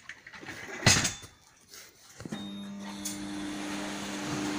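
A single sharp bang about a second in, then a steady mechanical hum with a low drone that starts about two seconds in and keeps going.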